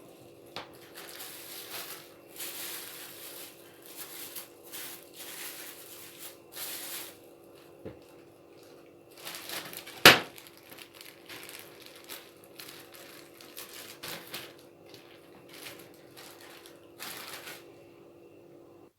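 Plastic freezer bag crinkling in repeated bursts as it is handled and opened, with one sharp knock about halfway through, over a faint steady hum.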